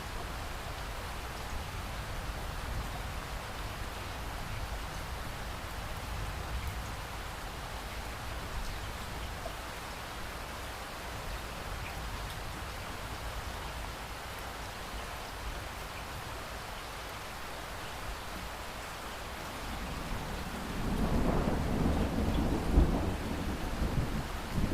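Steady rain over a low rumble, then a rolling peal of thunder builds up a little after three-quarters of the way in and is loudest near the end.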